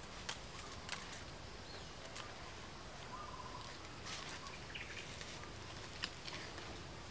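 Faint outdoor ambience in leafy undergrowth: a steady low hiss with scattered brief high chirps and clicks, and two short faint tones, one about three seconds in and one near the end.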